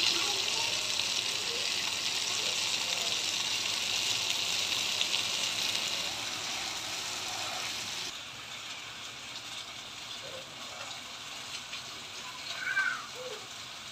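Leather jacket fish shallow-frying in hot oil in a pan: a steady sizzle that drops away about eight seconds in, leaving quieter room sound.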